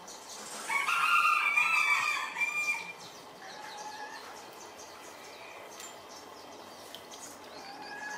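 A rooster crows once, starting about a second in and lasting about two seconds, the loudest sound here. A few faint, short bird calls follow.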